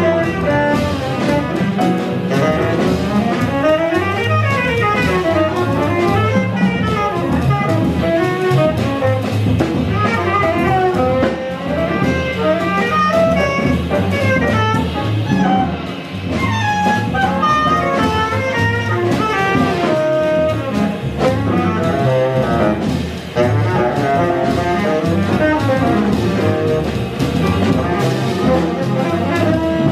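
Live small-group jazz: a drum kit played on the cymbals with sticks, a plucked upright bass, and a fast melodic solo line of running notes over them.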